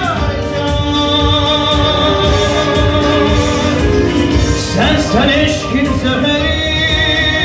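A man singing an Azerbaijani song into a handheld microphone over instrumental backing, holding long notes and then sliding through a quick ornamented run about five seconds in.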